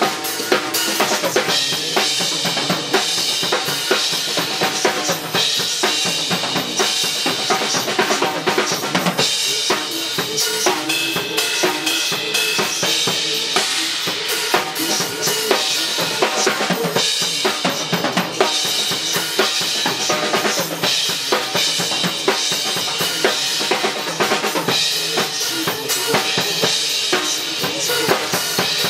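Drum kit played without a break in a cover of a song, kick, snare and cymbals hitting densely over the recorded song playing underneath.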